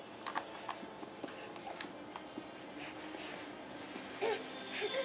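A baby's short breathy vocal sounds near the end, over faint scattered taps and clicks.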